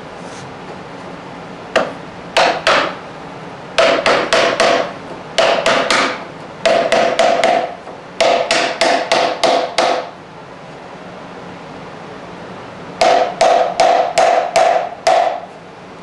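Mallet tapping a dovetail joint together, driving the dovetailed bottom down onto the curly maple case side for a test fit. Quick runs of sharp knocks, about four or five a second, each ringing briefly, with a pause of a few seconds partway through.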